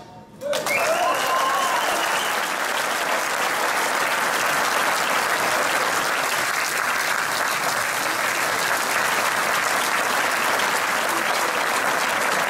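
Audience applauding, breaking out about half a second in and continuing steadily, with a few cheers in the first couple of seconds.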